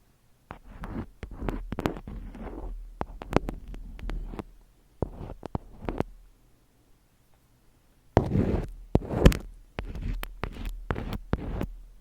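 Close-miked ASMR handling sounds: quick taps and clicks mixed with short rustles, stopping for about two seconds in the middle and coming back louder.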